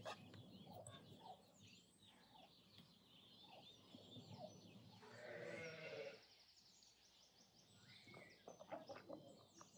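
Faint birdsong and chirping in a farmyard, with one wavering bleat of about a second from a sheep or goat about five seconds in.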